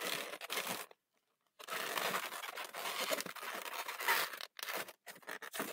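Inflated latex twisting balloons rubbing and squeaking against each other as they are handled and twisted into a sculpture, a rustling, crinkly scrape that stops briefly about a second in and turns choppier near the end.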